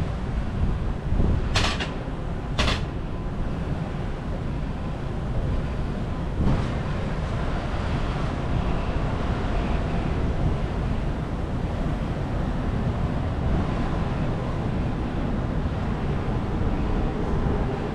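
Wind buffeting the microphone while riding a bicycle, a steady low rumble, with two brief sharp sounds about a second apart roughly two seconds in.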